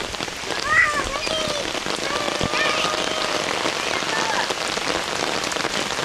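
Heavy rain pouring down, a dense, steady hiss of drops pelting the ground, leaves and umbrella.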